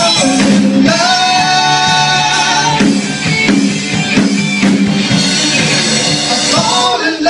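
A song: a voice singing long held notes over a band, with a steady low bass line underneath.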